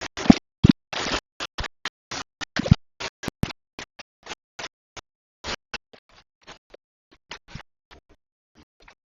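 A rapid, irregular series of short scraping strokes, loudest and densest over the first three seconds, then sparser and fainter.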